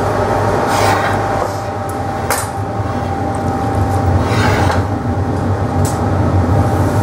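A glassblower's steel iron rolling back and forth along the metal arms of the glassmaker's chair while hot glass is shaped, making a rolling rumble with a few short rasping scrapes and one sharp click about two seconds in, over a steady loud roar and hum.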